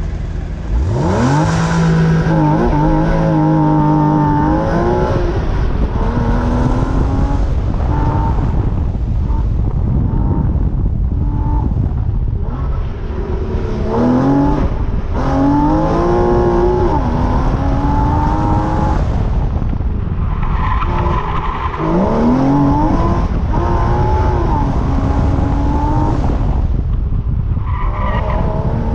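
Porsche Cayman S's 3.4-litre flat-six launching from a standstill about a second in, then revving up and down repeatedly as the car is driven hard around an autocross course, with tires skidding and squealing in the turns.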